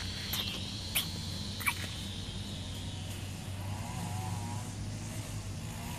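Quiet outdoor evening ambience: a steady high insect buzz over a low hum, with a few sharp clicks in the first two seconds.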